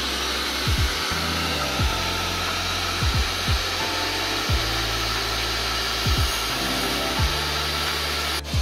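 Portable table saw running steadily while a cabinet box is pushed through its blade, a continuous motor whine with cutting noise. Lo-fi music with a bass line plays underneath.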